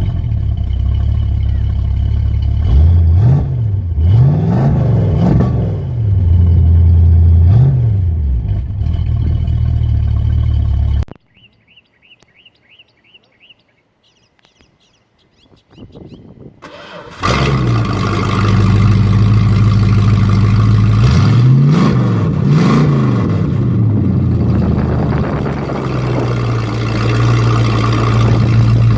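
1966 Ford Ranchero's 351 Windsor V8 idling through its exhaust (stock manifolds into 2.5-inch pipes and aftermarket mufflers), blipped into short revs several times. About eleven seconds in the engine sound stops suddenly, leaving birds chirping faintly. About five seconds later the engine starts and idles again, with more rev blips.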